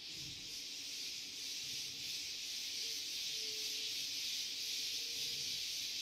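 Steady, high, hiss-like drone of an insect chorus in the field.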